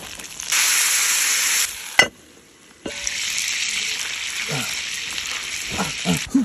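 Whole potatoes sizzling in hot oil in a cast-iron skillet as they are pressed flat. The hiss comes in two stretches, broken by a sharp click and a brief quiet gap about two seconds in.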